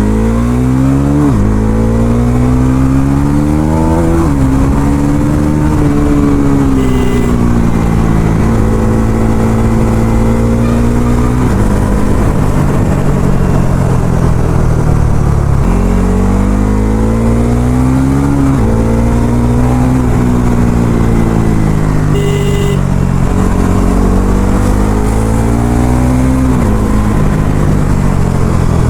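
Bajaj Pulsar NS400Z's single-cylinder engine under hard acceleration, its pitch climbing in each gear and dropping sharply at each upshift, twice in a short run of gears. Between the pulls the engine settles and winds down slowly as the throttle eases, holding a lower steady note for a few seconds near the middle.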